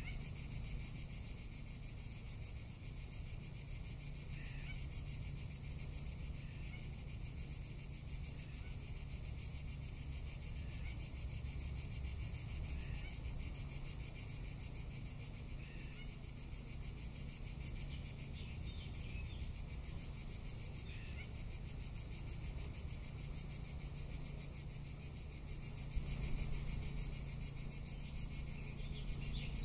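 Cicadas singing in summer: a steady, high, fast-pulsing buzz that goes on without a break, over a low rumble that grows louder near the end.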